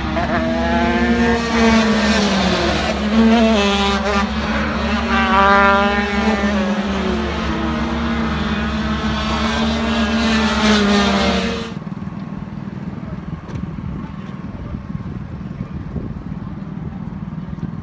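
Cross-kart engine running hard on track, its pitch rising and falling again and again as the driver revs up and lifts through the gears. About twelve seconds in it cuts off abruptly, giving way to a quieter, steady hum.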